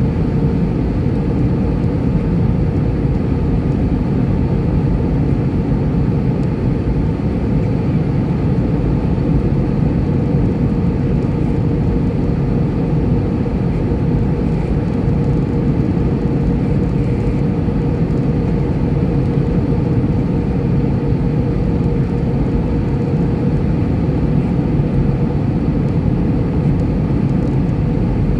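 Steady cabin noise of an Airbus A320-214 in flight, its CFM56 engines and the airflow heard from a window seat over the wing, with a faint steady hum running through it.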